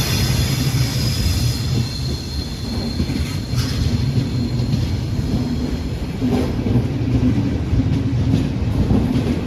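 Intercity train slowing into the station: a high brake and wheel squeal fades out over the first few seconds, over the steady low rumble of the train, which settles into a low hum.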